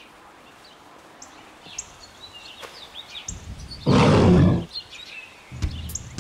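Small birds chirping here and there, then about four seconds in a single loud, rough burst of noise lasting about half a second over a low rumble.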